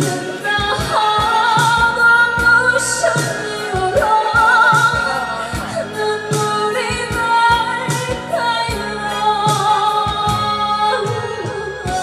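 A woman singing a slow Korean trot ballad with heavy vibrato, over a backing band with a steady drum beat.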